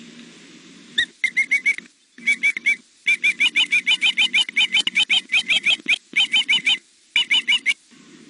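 Young osprey food-begging from the nest: runs of rapid, high, whistled chirps, about five a second, starting about a second in with short breaks between the runs.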